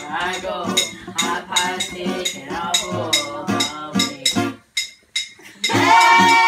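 A group singing along to an acoustic guitar, with a steady percussive clicking beat. About five seconds in, the music drops out for a moment, then comes back with a loud held sung note.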